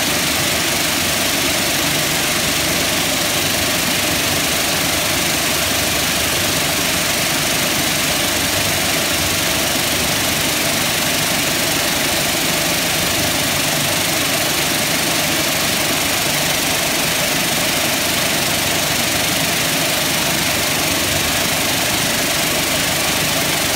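Vibratory finishing machine running steadily, its bowl of pyramid-shaped abrasive media churning and rattling as the media and parts are separated over the separation screen.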